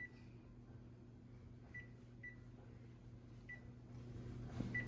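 Five short electronic beeps from a kitchen appliance's keypad as its buttons are pressed one at a time, irregularly spaced, over a low steady hum.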